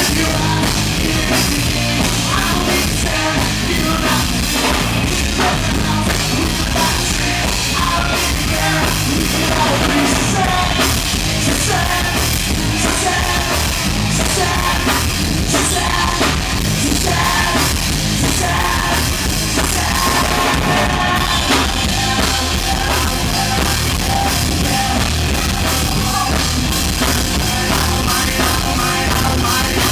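Loud rock music with drum kit and shouted singing, running steadily throughout.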